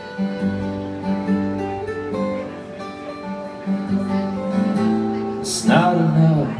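Live acoustic music: two acoustic guitars strumming chords under a bowed violin (fiddle) playing long held notes, in an instrumental passage that swells louder near the end.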